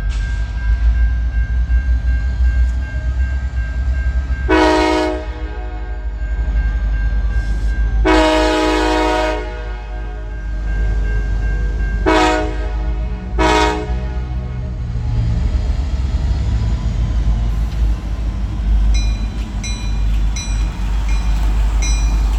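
Norfolk Southern diesel locomotive's air horn sounding four blasts for a grade crossing, the second one the longest, over the steady rumble of the train. Near the end a crossing bell rings at an even pace.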